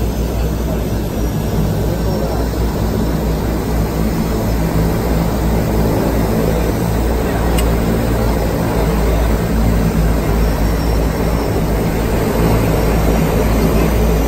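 Turboprop engines of a de Havilland Canada DHC-6 Twin Otter floatplane running at low power as it taxis on the water, heard from inside the cabin: a steady drone with a low propeller hum, growing slightly louder near the end.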